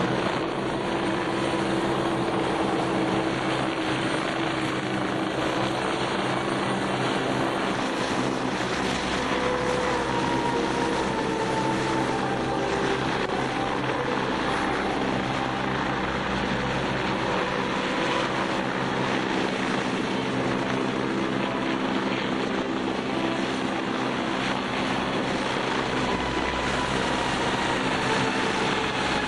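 Helicopters hovering close by: steady turbine and rotor noise, first from a Westland Scout, then for most of the time from a Westland Sea King.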